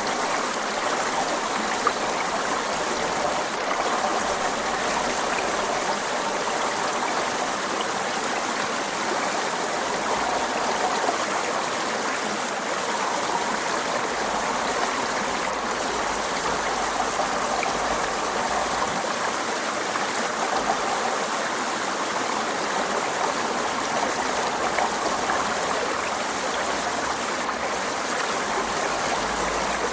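Forest stream flowing and babbling steadily over rocks.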